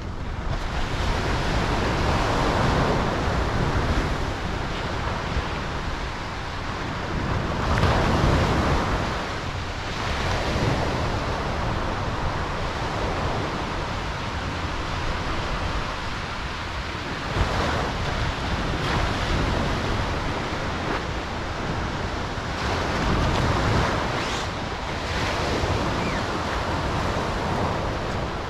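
Ocean surf breaking and washing in, a steady wash of noise that swells and falls every few seconds as the waves come in.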